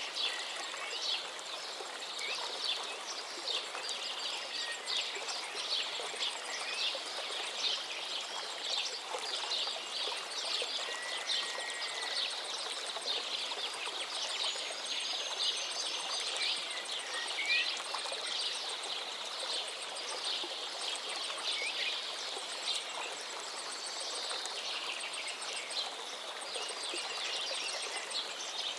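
Many birds chirping and singing over the steady rush of a stream, with dense quick chirps throughout. A few longer clear whistled notes come in, one about eleven seconds in.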